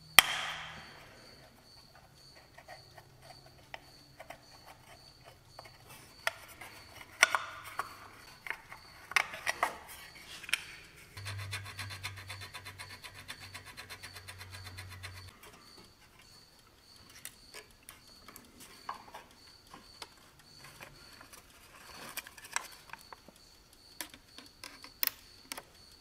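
Hand tools clicking, scraping and knocking on metal parts of a small garden-tractor engine while the ignition points under the carburetor are opened up. From about 11 s to 15 s a rapid, even run of ticks plays over a low hum.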